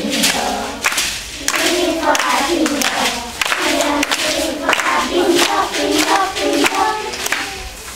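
A group of young children singing a song together in unison, with hand clapping.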